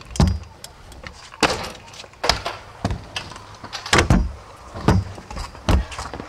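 Stunt scooter riding onto and along a metal-edged box ledge, its wheels rolling and grinding. Sharp clacks come about once a second as the wheels and deck strike the ledge and the concrete.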